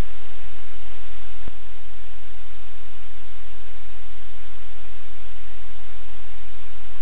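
Loud, steady static hiss with a low hum underneath: the noise of a live webcam's audio feed. A single click comes about a second and a half in, after which the hum drops slightly.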